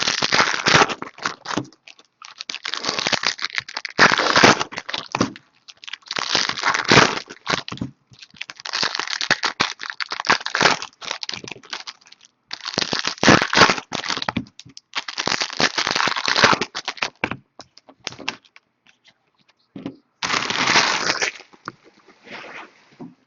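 Baseball card pack wrappers being torn open and crinkled by hand, in about eight crackling bursts of a second or two each with short pauses between.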